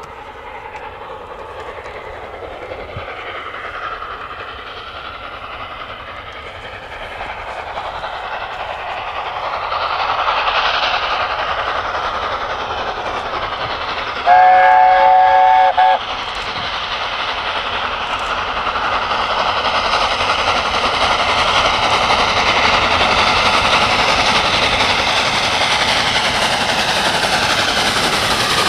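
LNER A4 Pacific steam locomotive 60019 Bittern approaching at the head of a passenger train, its running and exhaust growing steadily louder as it nears. About halfway through, its chime whistle sounds one chord of several notes for about a second and a half.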